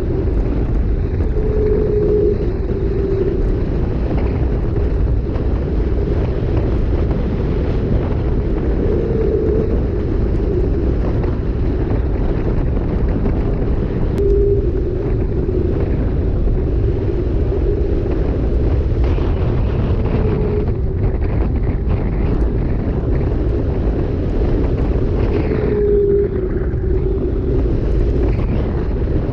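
Steady wind noise buffeting the microphone of an action camera on a mountain bike riding downhill on a paved road, with short faint whines every few seconds.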